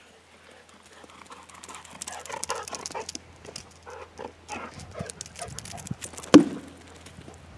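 A small dog running up across grass and gravel, its quick paw footfalls getting louder as it nears, with one sharp knock about six seconds in.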